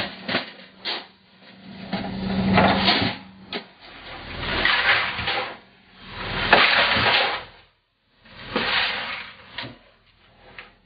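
Crushed ice being scooped and tipped over hake in plastic fish boxes: four rough, noisy bursts of about a second each, after a few knocks of plastic boxes in the first second.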